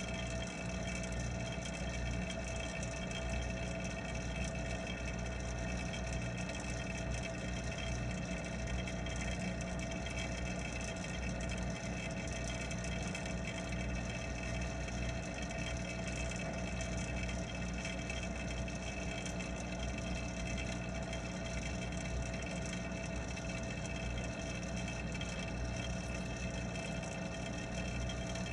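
Steady mechanical hum of a pond water pump, heard underwater: a low rumble with several steady tones over a constant watery hiss.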